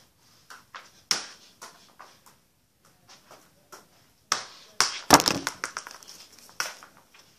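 A football being kicked off bare feet and bouncing on a hard stone floor: separate sharp knocks, with the loudest a quick run of bounces about five seconds in.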